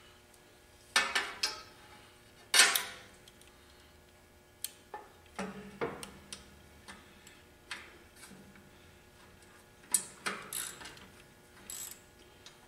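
Irregular metallic clicks and knocks of a ground wire's ring terminal and fitting being worked into place against a steel electrical box, the loudest about two and a half seconds in.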